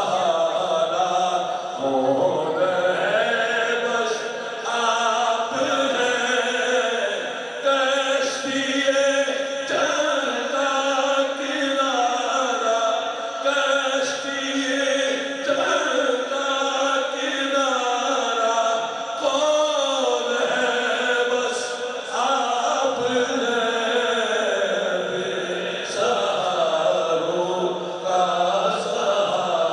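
A man singing a naat, an Urdu devotional poem in praise of the Prophet, into a microphone, in long, drawn-out melodic phrases.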